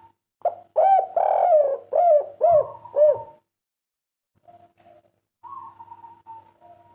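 Spotted dove (derkuku, a 'kuk 3' singer) cooing: a loud phrase of about five arched coos in the first half, then softer cooing later on.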